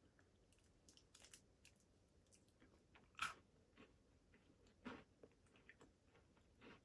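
Quiet chewing of a salted caramel Twix biscuit: faint, scattered mouth clicks and soft crunches, the clearest about three seconds in and again just before five seconds.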